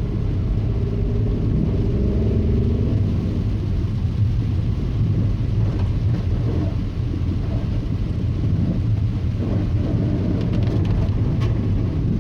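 Audi A2 1.4 TDI diesel car driving on wet, flooded roads, heard from inside the cabin: a steady low engine and road rumble. The engine note rises briefly about two seconds in.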